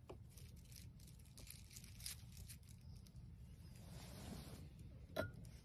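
Faint clicks and plastic crinkling as a small wooden-handled knife slices a block of luncheon meat lying on plastic wrap on a wooden cutting board, with one sharper knock about five seconds in.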